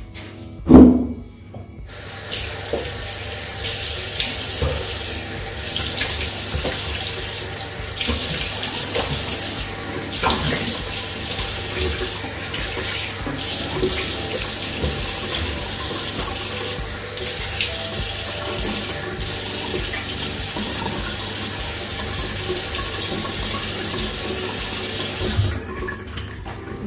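Bathroom sink tap running with water splashing as a face is rinsed clean of cleanser by hand; the water comes on about two seconds in and shuts off near the end. About a second in, before the water starts, there is a single sharp knock, the loudest sound here.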